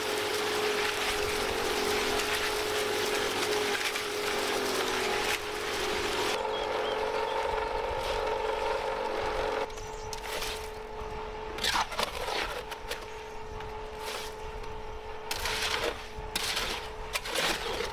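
A motor-driven machine running with a steady hum and hiss, its sound changing about six seconds in. It stops about ten seconds in, leaving scattered knocks and clatter.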